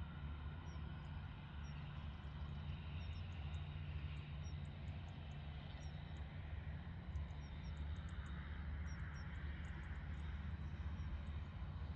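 Distant airliner jet engines running at taxi power: a steady low rumble and hiss, with a whine that swells twice as the aircraft move.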